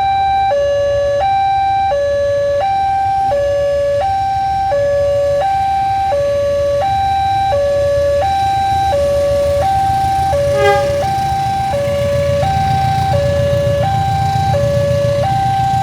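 Railway level-crossing warning alarm sounding steadily, an electronic two-tone siren alternating between a lower and a higher tone about every 0.7 s, the signal that the crossing is closed for an approaching train. A brief horn toot comes about ten and a half seconds in, and a low rumble grows in the last few seconds.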